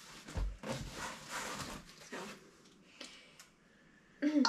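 Clothes and plastic packaging rustling as garments are handled and pulled from a box, with a soft low thump about half a second in. The handling quietens after about two seconds, and a louder tone starts right at the end.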